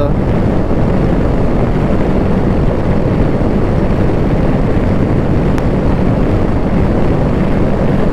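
BMW motorcycle running at a steady road speed: a constant low engine hum under a loud, even rushing noise of wind and road.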